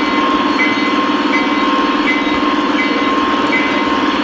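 O-gauge model train running on three-rail track, heard up close at track level: a steady motor and wheel whir with a constant whine and a short chirp repeating about every three-quarters of a second.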